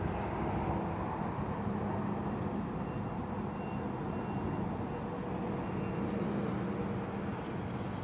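Steady low rumble of distant road traffic, unchanging throughout.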